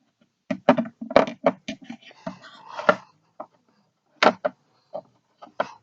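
Plastic toys being handled: a quick run of clicks and knocks, then a few separate taps.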